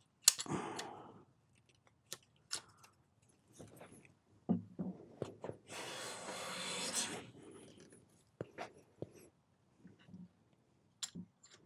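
A sharp click near the start, then one stroke of a Luban No 4 smoothing plane along a beech board edge: the blade slicing off a thin shaving as a hiss lasting about a second and a half, followed by light clicks and knocks.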